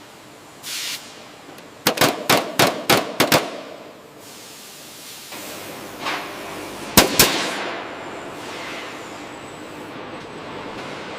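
A quick run of about six sharp impacts in under two seconds. A few seconds later come two more, the second with a fading ringing tail, over a steady background hiss.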